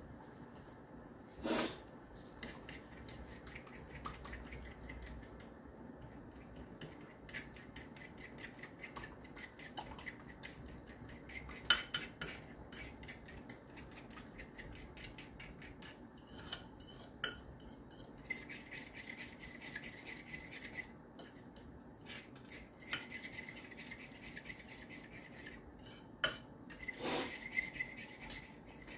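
A utensil stirring fast in a small bowl of cornstarch slurry to work out the lumps, with a rapid run of light clinks and scrapes against the bowl and a few louder knocks.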